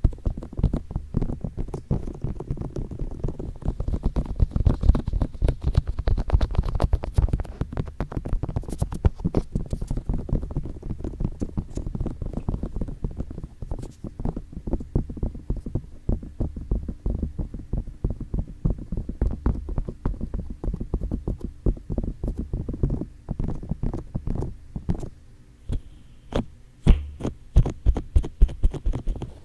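Fingers tapping and rubbing on ASMR microphone ears: a dense run of rapid close taps, heavy in the bass, thinning near the end to fewer, sharper separate taps.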